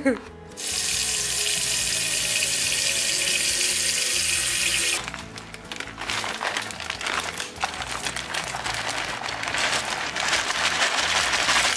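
Kitchen sink tap running in a steady stream for about four seconds, then a quieter, uneven splashing with a few light knocks.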